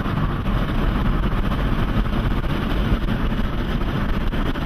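Steady road and engine noise of a moving vehicle, heard inside the cabin.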